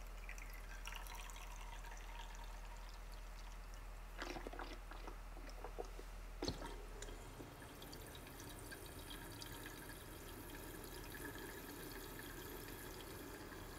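Toilet bowl cleaner squeezed from a bottle into a rusty metal fuel tank, trickling and dripping faintly, with a few light taps of the bottle a little after four seconds in and again about six and a half seconds in.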